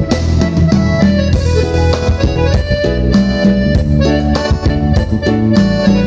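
Instrumental break in a Malay song between sung lines: a held melody over bass and percussion, with no singing.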